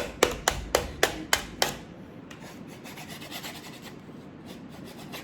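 Unicorn Putty packaging being stabbed at from the back to get it open: a quick run of about seven sharp clicks, then fainter scratching and ticking.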